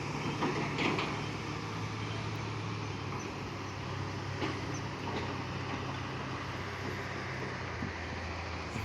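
A steady low engine hum running without change, over an even background rush.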